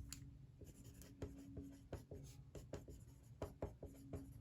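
Pencil writing on a paper planner sticker: faint, irregular scratchy strokes of handwriting.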